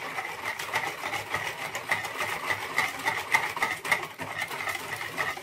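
Wire whisk beating a liquid cocoa mixture in a plastic bowl: a quick, steady rhythm of clicking, scraping strokes. The cocoa powder is being whisked into the cold liquid to dissolve it without lumps.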